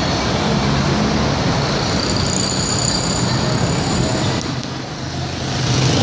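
Busy city street traffic: a steady mix of engines from jeepneys, motorcycles and cars, over a low engine drone. A faint high tone sounds through the middle, and the traffic dips briefly about four and a half seconds in before building again.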